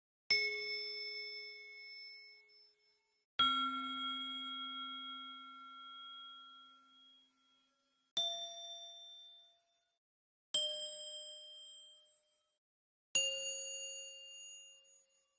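A bell struck with a stick, five single strikes a few seconds apart, each ringing out and fading away. Each strike is at a different pitch; the second is the lowest and rings the longest.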